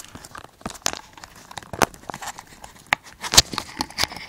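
Handling noise from a gas mask and its parts being fiddled with: scattered sharp clicks and knocks, several louder ones in the second half, over a light rustling.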